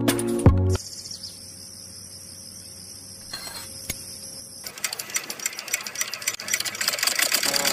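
Background music cuts off under a second in, leaving a faint high whine; about two-thirds of the way in a small toy motor starts and runs with a rapid, growing clatter as it spins a miniature chaff cutter's flywheel through a rubber belt.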